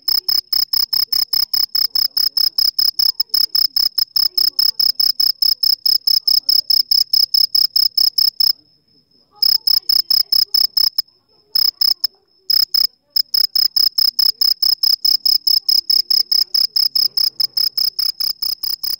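A single cricket chirping: a high, evenly spaced pulse train, about six pulses a second. It breaks off about eight seconds in, comes back in a few short bursts separated by gaps, then runs steadily again.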